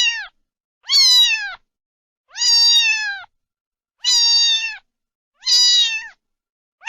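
A domestic cat meowing over and over: high-pitched meows, each under a second long and dropping in pitch at the end, about one every second and a half.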